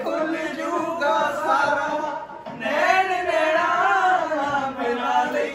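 A man singing a song, drawing out long, wavering notes with a short break about two and a half seconds in.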